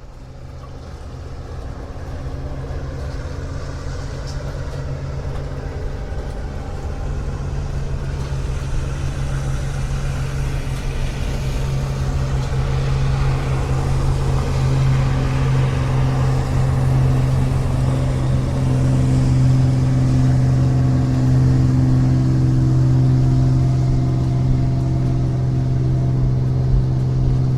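Motorboat engine running with a steady low drone and noise above it, growing louder over the first half and then holding level.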